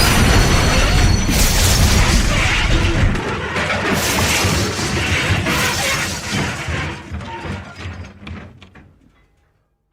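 Train wreck sound effect: a loud crashing, shattering din with several heavier impacts, thinning out and fading away to silence near the end.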